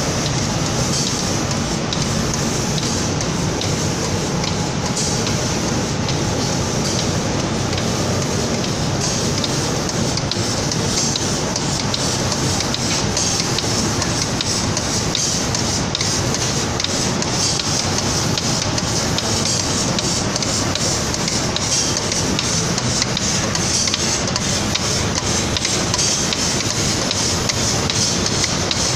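Automatic spray-painting machine for cabinet doors running: a steady hiss from its spray gun over unbroken mechanical noise.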